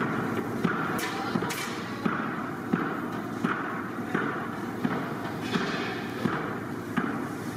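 A hand fan being flapped over a charcoal grill of chicken kebab skewers: a regular flap-thump about every 0.7 seconds, each with a short whoosh of air, over the steady noise of the burning coals.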